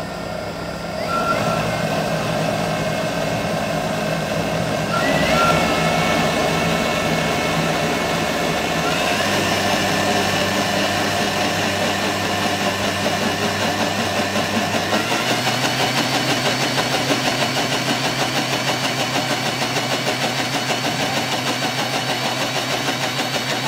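Osojimix kitchen robot's motor and blade blending a liquid ice cream base. The whine steps up in pitch several times as the speed rises progressively from 5 to 10, and it stops right at the end.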